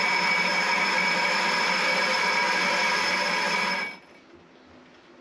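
Myford lathe turning a chamfer on the rim of a miniature locomotive wheel: a steady cutting noise with a ringing tone, which stops abruptly about four seconds in.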